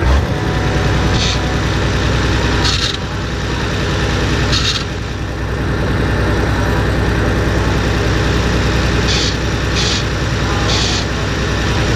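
A vehicle's engine running steadily under way, low-pitched with rapid even pulsing, with six short bursts of higher hiss over it.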